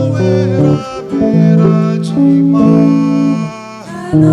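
Music: a guitar playing a sequence of held chords that change in steps, with a singing voice at times.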